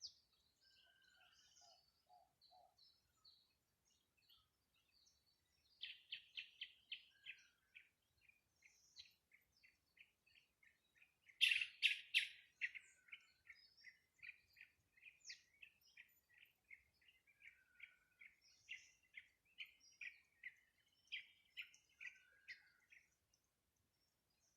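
Birds chirping: a few scattered chirps at first, then about six seconds in a long run of short repeated chirps, about three a second, loudest near the middle, stopping shortly before the end.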